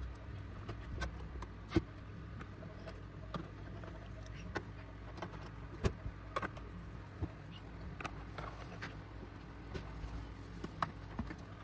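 Scattered light clicks and taps as hands and a pry tool work on a Bluetooth speaker's plastic housing, the sharpest about two and six seconds in, over a steady low hum.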